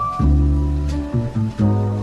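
Background music: slow sustained chords over a deep bass, changing about every second.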